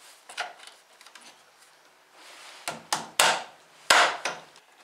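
Plastic wheel cover being pressed and knocked by hand onto a car's steel wheel, with faint rubbing first and then several sharp knocks in the second half as it snaps into place; the loudest comes near the end.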